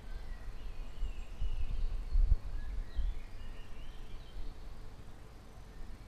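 Small birds chirping and twittering, with short rising and falling calls that thin out in the second half, over a low, gusty rumble of wind on the microphone.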